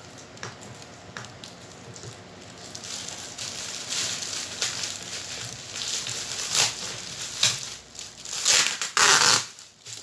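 Packaging being handled and opened: crinkling, rustling and scraping noises that grow louder partway through, with a longer, loud rustle near the end.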